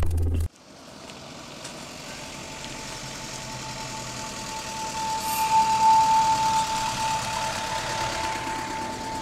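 A short electronic music sting cuts off about half a second in. A steady mechanical hum with a steady high whine follows; it swells to its loudest about six seconds in, then slowly fades.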